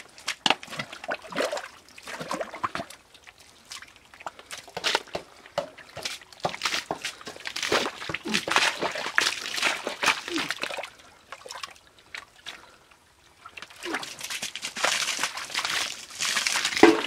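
Hands groping and digging through wet mud and shallow muddy water: irregular sloshing and squelching, with a quiet spell about twelve seconds in.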